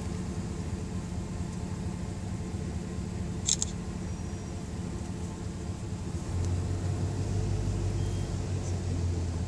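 Steady low rumble and hum of a car moving slowly, its low hum growing louder about six and a half seconds in, with a short sharp double click about three and a half seconds in.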